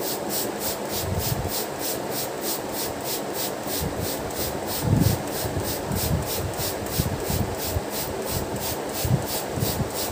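Hand-trigger plastic spray bottle being squeezed rapidly, about four to five hissing spritzes a second, misting liquid onto a sponge cake layer to soak it. A soft low knock about five seconds in.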